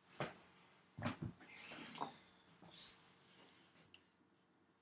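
Faint handling noises: a few soft knocks and thumps in the first two seconds, then light rustling and small clicks as an egg-beater hand drill is picked up and handled.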